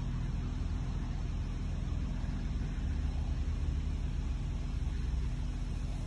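Large engine running steadily, a low even rumble with no change in speed.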